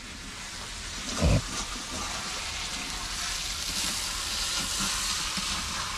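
Chicken curry sizzling in a hot pan, a steady hiss that grows gradually louder, with a single dull knock about a second in.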